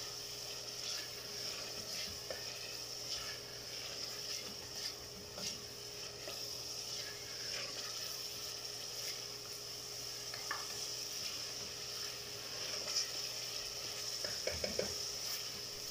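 Tomatoes and ginger-garlic paste frying in oil in an aluminium pot: a steady sizzle, with a spatula stirring and scraping against the pot now and then. The tomatoes have just gone in and are cooking down until soft.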